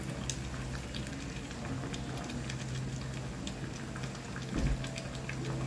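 Mushroom gravy simmering in a nonstick pan, with light bubbling pops as a spatula stirs in a cornflour slurry to thicken it. A steady low hum runs underneath, and a soft low thump comes about four and a half seconds in.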